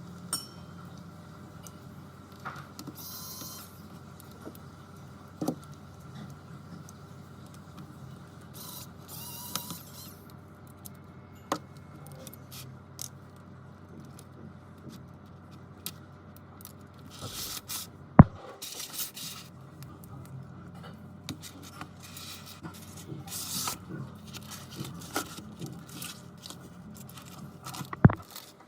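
Repair tools clicking, tapping and scraping on an iPad Air 2's glass and frame, over a steady low hum. Two sharp clicks, about 18 seconds in and near the end, are the loudest.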